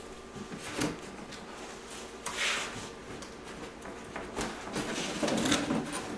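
Cardboard packaging being handled and slid off a printer box: cardboard sliding and scraping against cardboard, with a few light knocks and rustles, busiest near the end.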